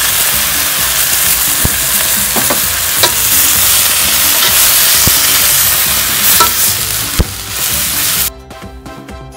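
Water spinach stir-frying in a hot wok: a loud, steady sizzle, with a few sharp clicks of the spatula against the wok as it is stirred. The sizzle cuts off suddenly about eight seconds in, leaving only background music.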